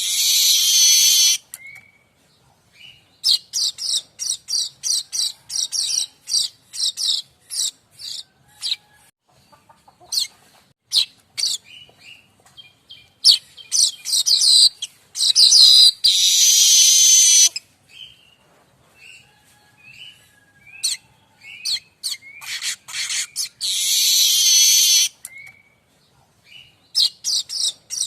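Streaked weaver (manyar kembang) singing: runs of quick ticking notes that break into long, dense buzzing trills, with short chirps in the gaps, repeated over and over.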